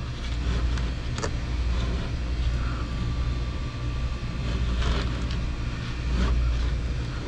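Refrigerant line set being pulled through a ceiling: a steady low rumble with a few short scrapes and knocks.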